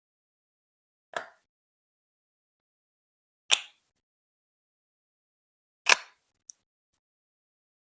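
Lego Duplo plastic bricks clacking as they are set in place, three single sharp clacks a couple of seconds apart with a faint tick just after the last, and silence in between.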